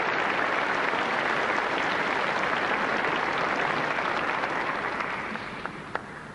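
Concert-hall audience applauding, the clapping thinning out and dying away over the last two seconds, with one last stray clap near the end.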